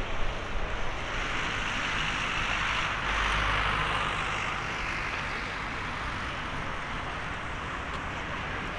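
Airbus A350-900's Rolls-Royce Trent XWB turbofans running at low taxi thrust as the jet turns, a steady rushing hiss over a low rumble. It swells a little about three to four seconds in and then eases.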